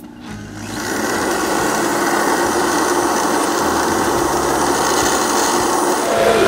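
Countertop blender motor starting up and coming to full speed within about a second, then running loud and steady as it churns frozen peaches with a splash of milk into a thick ice-cream purée.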